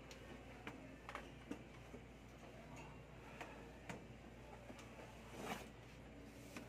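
Faint, irregular light clicks and taps, about eight over several seconds, with one slightly longer scrape midway through, from fingers working sealant into the end of a PVC pipe and handling the plastic sealant tub.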